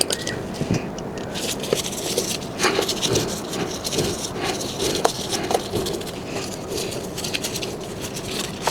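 Irregular clicks, rattles and short scrapes, as of hands handling tools and parts at close range.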